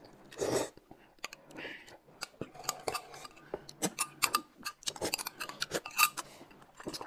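Metal spoons clinking and tapping against glass mugs of corn soup, many small irregular clicks, with a slurping sip about half a second in.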